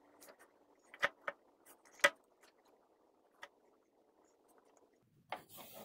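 Feathers being plucked from a dead wood duck: a few sharp snapping ticks, the loudest about two seconds in, over a faint steady background hum.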